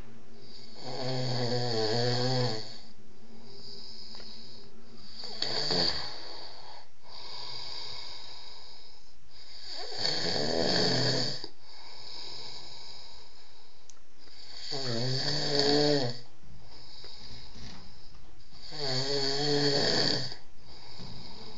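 A man snoring, one long snore roughly every four to five seconds, five times over.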